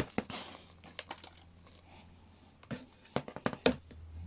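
Handling noise from the sander's power cord being handled: a sharp click at the start, then scattered light taps and rustles, with a busier cluster of clicks and knocks near the end.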